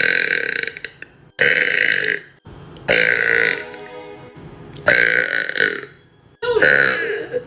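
A person burping loudly over and over. One burp fades out at the start, then four more follow, about one every second and a half, each lasting half a second to a second.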